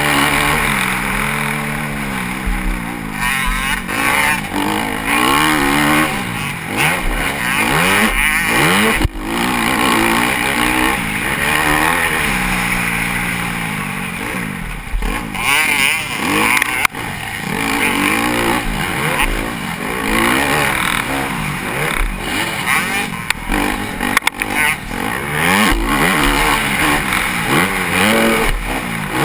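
Motocross bike's engine heard from the rider's helmet camera while racing, revving up and dropping again and again as the rider works the throttle and shifts. There are a couple of sharp knocks along the way.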